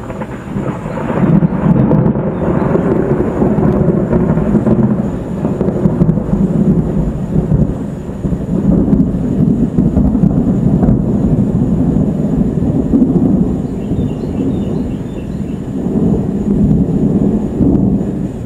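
A long roll of thunder from a dry thunderstorm. It rises sharply right at the start, rumbles on with a dip partway through, and swells again near the end.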